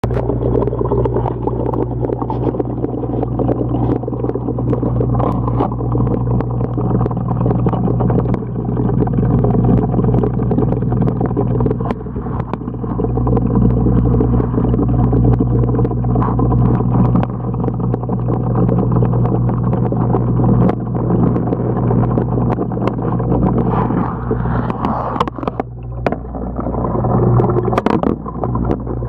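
Steady low hum with a rumbling wash, heard through the water of a home fish tank with the camera submerged, with scattered light clicks and knocks that grow more frequent near the end.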